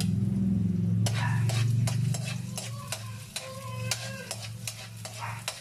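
Chopped garlic sizzling in hot oil in a steel wok while a metal ladle stirs and scrapes it, giving repeated clinks and scrapes against the pan. A low steady hum runs underneath and softens after about two and a half seconds.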